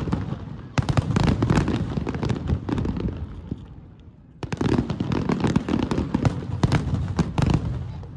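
Finale barrage of aerial fireworks shells bursting in rapid volleys with dense crackling. There are two waves: one starts about a second in and fades by about halfway, and the next starts just past halfway and tails off near the end.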